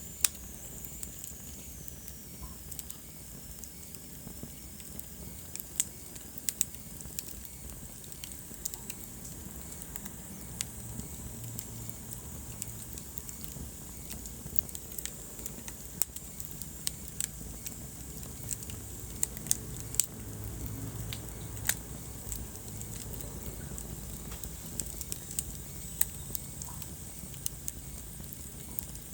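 Wood fire burning in a fireplace: irregular sharp crackles and pops over a steady low rush of flame.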